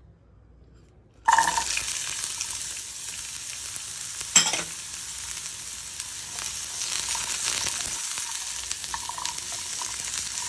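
Shallots and garlic cloves dropped into hot oil in a nonstick pan about a second in, then sizzling steadily as they are stirred with a silicone spatula. One sharp tap comes a few seconds after the sizzling starts.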